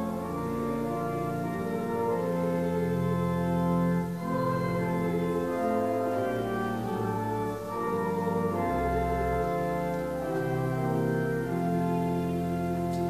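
Organ playing slow, sustained chords that change every second or two, with a deep bass note underneath at times.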